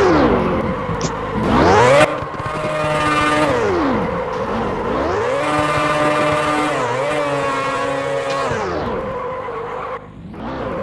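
Motor vehicle engine revving, its pitch repeatedly falling and rising again, with a steadier stretch in the middle; the sound cuts abruptly about two seconds in.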